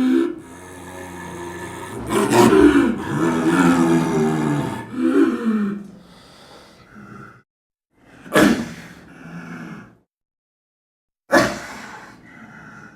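Snow leopard vocalizing: a long, rising-and-falling growling call lasting about seven seconds, then two short, sharp calls a few seconds apart.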